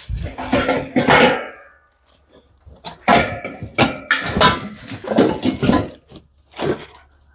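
Packing parts back into a cardboard box: plastic packaging crinkling and pink metal cart pieces clinking and knocking together, in two spells of handling with a short pause between.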